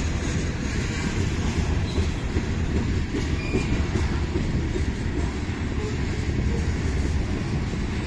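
Freight train of covered hopper cars rolling past, the wheels on the rails making a steady rumble, with a short faint high squeal about three and a half seconds in.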